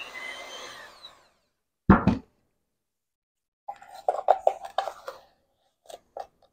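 Electric hand mixer winding down in a stainless steel bowl after being switched off, then a single clunk about two seconds in as it is set down on the table. A run of quick, light taps follows near the end.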